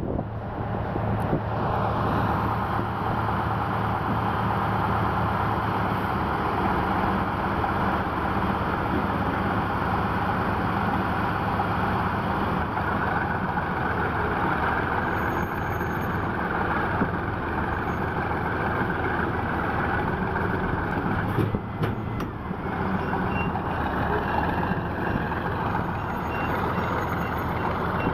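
Heavy diesel engines of a tractor and crane truck running steadily. From about two-thirds of the way in, a reversing alarm beeps faintly and repeatedly over the engine noise.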